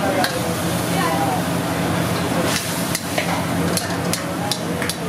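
Steel ladle stirring and scraping through thick chicken gravy in an iron kadai, with the gravy sizzling and several sharp clinks of the ladle against the pan.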